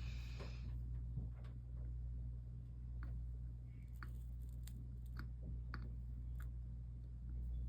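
Faint, scattered ticks and crackles of solder and flux sizzling under a soldering iron on stained-glass joints, over a steady low hum.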